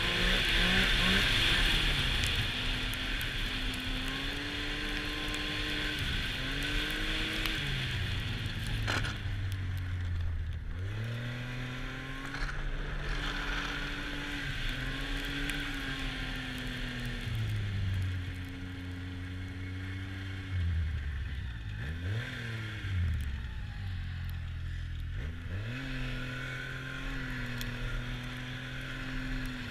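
Arctic Cat four-stroke snowmobile engine running while riding a trail, its revs falling and climbing again several times as the throttle is eased off and reapplied, under a steady hiss of wind and track noise.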